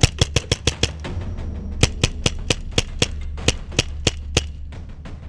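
Paintball markers firing in quick volleys: a fast string of about seven shots in the first second, then a second run of about ten shots at roughly four a second.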